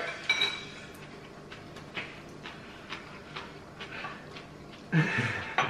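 Close-miked chewing mouth sounds: soft, irregular wet clicks and smacks, a few a second. A brief burst of voice comes about five seconds in.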